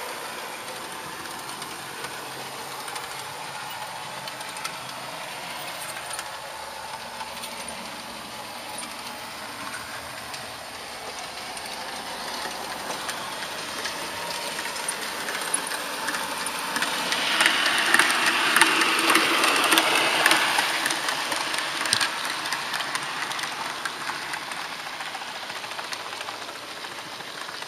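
HO-scale model train running along its track: a steady rolling and motor noise with scattered sharp clicks from the wheels on the rails. It grows louder for a few seconds past the middle, then eases off again.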